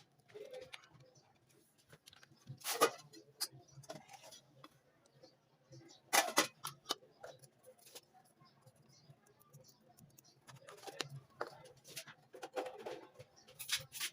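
Scattered light clicks and knocks of things being handled, with two louder short noisy bursts about three and six seconds in.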